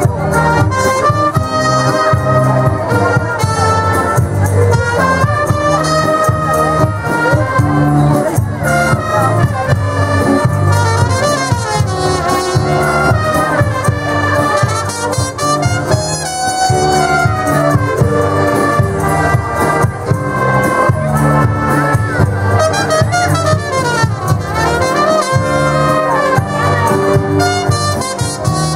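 A wind band of saxophones, trumpets, French horn and flutes playing a lively tune together, with a steady low beat under it.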